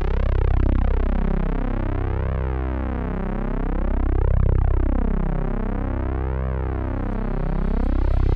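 Sustained electronic synthesizer drone with a whooshing sweep that rises and falls in slow waves about every two seconds.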